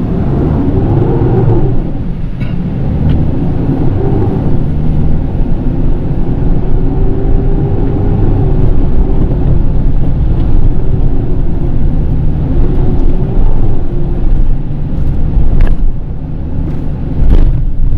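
A new-generation Mitsubishi Triton pickup's engine heard from inside the cabin while driving over rough off-road ground. The engine note rises and falls with the throttle over a heavy rumble of tyres and suspension, with a couple of sharp knocks near the end.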